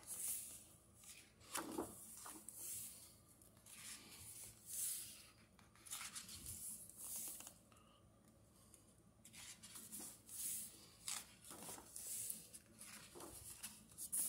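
Pages of a thick-paper hardcover comic book being turned by hand: repeated soft papery swishes and rustles about a second apart, with a quieter lull a little past halfway.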